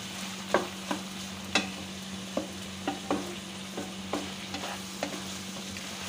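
Spatula stirring taro stolons and chopped prawns frying in hot mustard oil in a wok: a steady sizzle, with the spatula knocking and scraping against the pan about once or twice a second.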